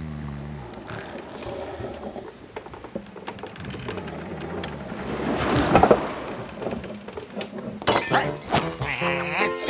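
Cartoon sound effects: a swelling rush of noise that peaks about six seconds in, then a sudden crash with a breaking-glass clatter about eight seconds in.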